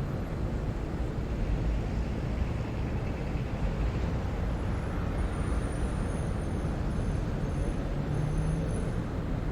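City traffic ambience: a steady low rumble of distant road traffic, with faint high thin tones coming and going in the second half and a short low hum near the end.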